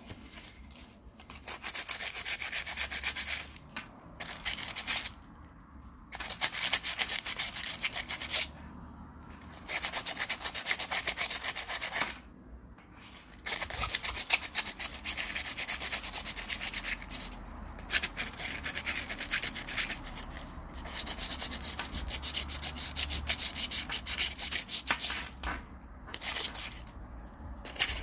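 Coarse 80-grit sandpaper rubbed by hand over a metal watch case and bracelet in quick back-and-forth strokes, coming in bouts of a few seconds with short pauses between them. The metal is being sanded back before it is spray painted.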